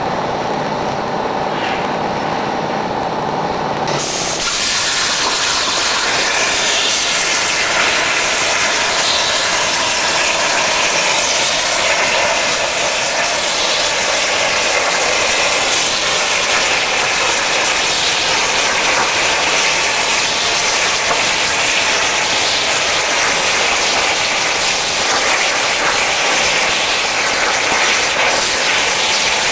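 CNC cutting torch cutting through steel plate: a loud, steady hiss of the cutting jet that starts abruptly about four seconds in. Before it there is a lower steady hum.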